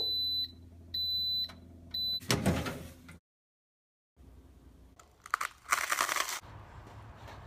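Cuisinart toaster oven beeping three times, a second apart, over a low hum: the signal that the toast is done. A short clatter follows, and after a cut, a louder noisy burst comes near the end.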